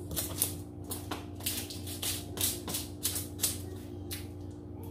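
Spice jars being handled and shaken: a string of short, irregular clicks and rattles, about three a second, over a steady low hum.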